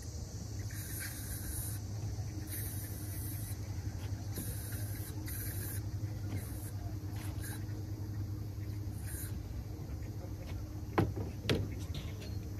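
Outdoor ambience by a lake: a steady low hum with short faint hissing patches every second or two, and two sharp knocks about half a second apart near the end.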